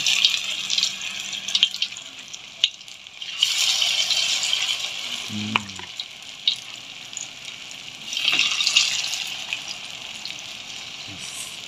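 Spoonfuls of food frying in hot oil in a wok, sizzling and bubbling. The sizzle swells about three and a half seconds in and again about eight seconds in, with a few sharp clicks of the spoon against the wok.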